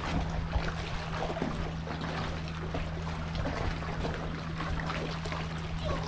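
Seawater washing and trickling among shoreline rocks at low tide, a steady rushing wash with a constant low hum beneath it.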